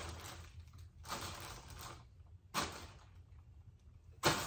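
Rummaging and handling noises: three short bursts of rustling and knocking, about a second in, around two and a half seconds in, and a sharper, louder one near the end.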